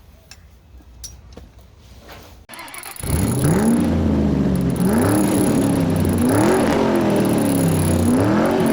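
Car engine revving over and over, its pitch climbing and falling back about every second and a half. It cuts in suddenly about three seconds in, after a few faint clicks.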